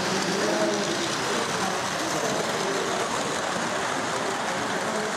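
O gauge model train running round the layout on metal track: a steady rumble of wheels on rails, with a crowd murmuring in the hall behind it.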